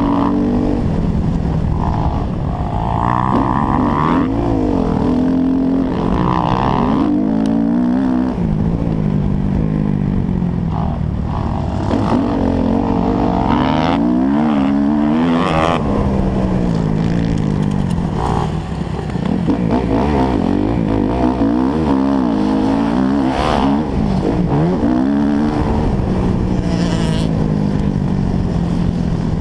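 Four-stroke motocross bike engine heard from on the bike, the pitch climbing repeatedly under throttle and dropping back on gear changes and off-throttle, with a low wind rumble underneath.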